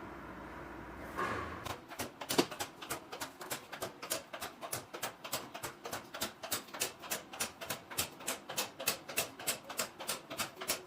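Electric locks on a bank of vending-machine lockers releasing one after another, a rapid, even series of sharp clicks about four a second: all the lockers are being opened with a single command for refilling.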